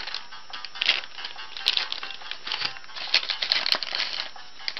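Clear plastic toy bag crinkling in the hands as it is handled and opened, in irregular bursts of crackle.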